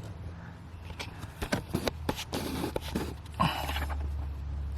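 Handling noise: irregular light clicks and knocks with two short rustling stretches, over a steady low hum.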